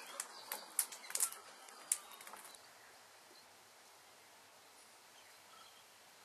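A quick, irregular run of sharp clicks, with a few short bird chirps, for about two and a half seconds, then only a faint, steady outdoor hiss.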